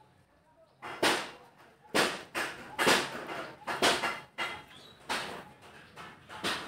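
Irregular short scraping and rustling noises, roughly two a second, starting about a second in: hands and arm brushing against and close to the recording phone while working on the starter motor.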